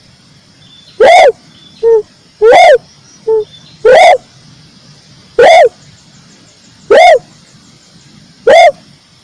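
Repeated calls of a red dove (Indonesian "tekukur merah"), played as a lure recording: six loud, short calls about a second and a half apart, each rising then falling in pitch. Two shorter, lower notes fall between the first three calls.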